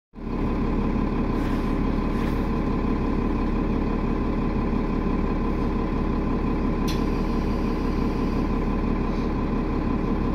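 Steady drone of a city bus's engine heard from inside the passenger cabin, with several steady humming tones. A single sharp click about seven seconds in.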